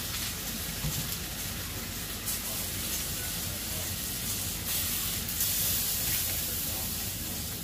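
A steady hiss, with a few brief louder surges of high hiss about two, four and a half, and five and a half seconds in.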